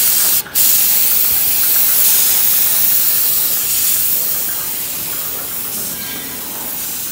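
Compressed-air paint spray gun hissing steadily as it sprays a scooter side panel, with a short break about half a second in.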